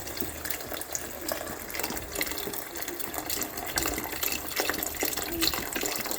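Vegetable broth being poured into a pot, a steady splashing pour that grows a little louder toward the end.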